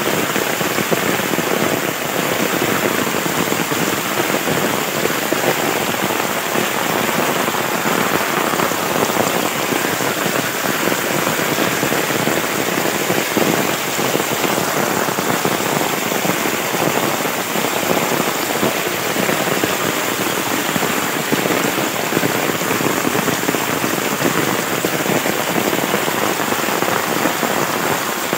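Steady rushing of muddy rainwater runoff flowing fast along a field channel in heavy rain.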